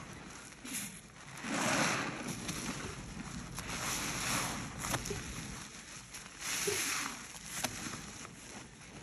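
Rubber-gloved hands squeezing and kneading a sponge in a basin of thick foamy cleaning suds: wet squelching and fizzing foam, swelling three times, with a couple of sharp clicks.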